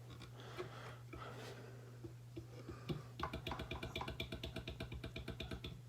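A few knocks as the glass bowl is seated on a KitchenAid stand mixer. About three seconds in, the mixer's motor runs briefly with a steady whine and a fast, even clatter.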